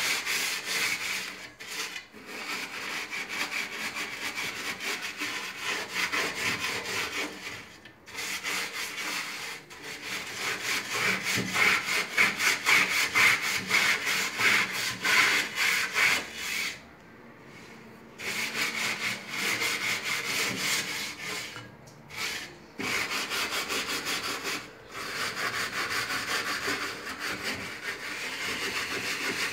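Steel wool scourer scrubbing the inside of a countertop oven in rapid back-and-forth strokes, with a few short pauses, the longest just past halfway. The baked-on grime, softened by an overnight soak, is coming off.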